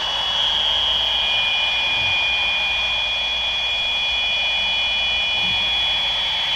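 Fisher-Price baby monitors feeding back: a steady hiss with two high whining feedback tones held at nearly constant pitch, shifting slightly near the end as the transmitters are moved against the receivers.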